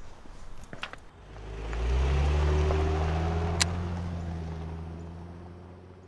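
A low, deep rumble that swells up over about a second, holds, then slowly fades away, with one sharp click partway through.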